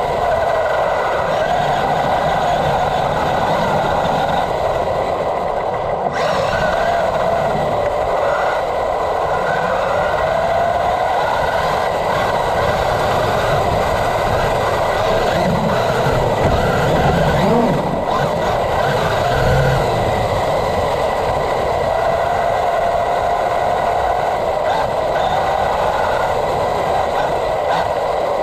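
Traxxas UDR radio-controlled truck's electric motor and drivetrain whining as it drives over grass, the whine rising and falling in pitch with the throttle.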